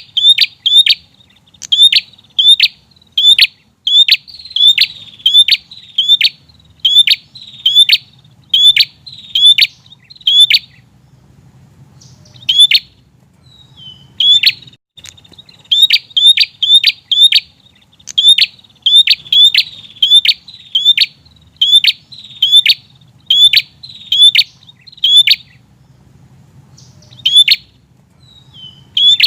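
Prenjak (prinia) calling persistently: fast runs of sharp, loud chirps, about two a second, with two short breaks.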